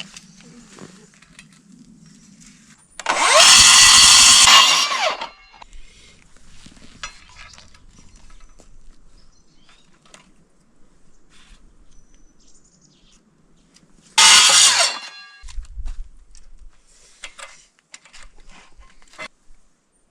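Angle grinder running on steel in two bursts: a loud run of about two seconds some three seconds in, and a shorter one under a second long about eleven seconds later, each winding down in pitch as it is let off. Light knocks of metal being handled in between.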